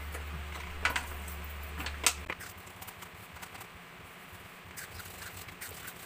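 Dishes being washed by hand at a stainless steel sink: a sponge scrubbing a pot, with light clatter and two sharp knocks about one and two seconds in. A low hum stops a little after two seconds in.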